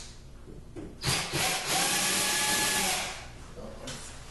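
Cordless drill driving out a mounting screw from a vanity light fixture. It runs for about two seconds starting about a second in, its motor pitch rising as it spins up and dropping as it stops.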